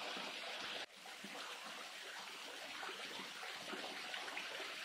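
Thin waterfall, a narrow stream of water falling from a high cliff, making a steady splashing hiss; the sound dips sharply about a second in and carries on a little quieter.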